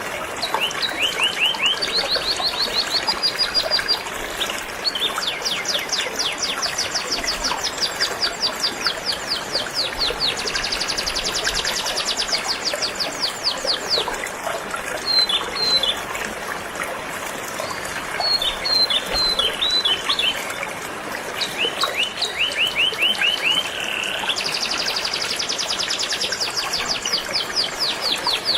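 Canary singing a long run of fast trills of rapidly repeated notes, changing from one trill to the next, with short chirps between them, over the steady rush of flowing river water.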